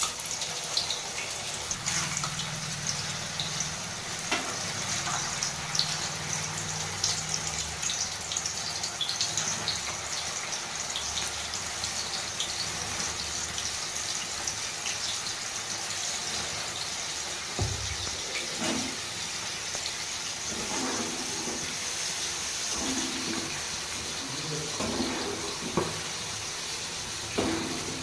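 Squeezed field beans (anapakaya) deep-frying in hot oil in a pan: a steady sizzle full of fine crackles. A few short knocks come in the second half.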